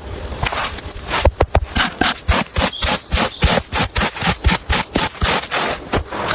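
Rapid, even back-and-forth strokes, about five a second, typical of a hand saw cutting wood; they start about a second in and stop just before the end.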